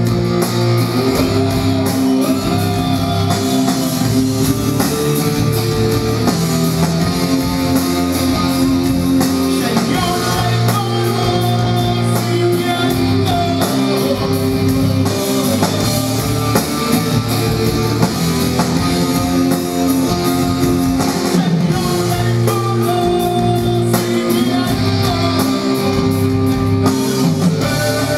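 Rock band playing live at full volume: a male singer over electric guitar, bass guitar, keyboards and a drum kit.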